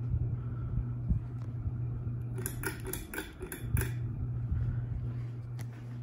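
52-inch ceiling fan running at medium speed: a steady low motor buzz with air rushing past. About midway there is a quick run of sharp metallic clicks.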